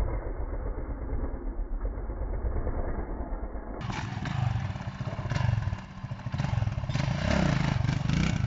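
Dirt bike engine revving up and down with the throttle as the rider lifts the front wheel into a wheelie. The sound jumps brighter and louder about four seconds in, at a cut.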